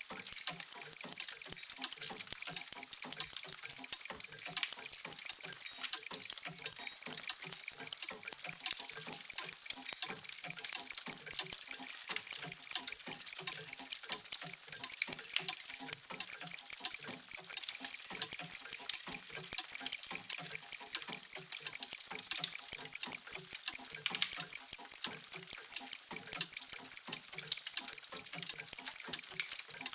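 Many mechanical clocks ticking at once: a steady, dense patter of overlapping ticks with no single beat standing out.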